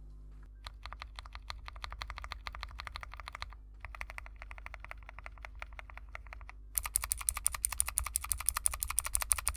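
Mechanical keyboard switches typed on rapidly in three short takes with brief pauses between: first the quiet clacks of JWICK Yellow linear switches, then another switch, then a clearly louder, sharper, brighter run of clicks typical of clicky switches.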